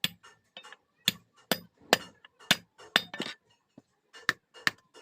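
Blacksmith's hand hammer striking a steel blade on an anvil, sharp metallic blows about two a second with a short ring after each, pausing briefly about three and a half seconds in.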